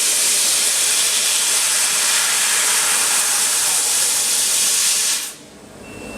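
Fiber laser cutting head cutting 4 mm brass at 2000 W, its high-pressure assist-gas jet giving a loud, steady hiss. The hiss cuts off suddenly about five seconds in as the cut ends, and a short high beep follows.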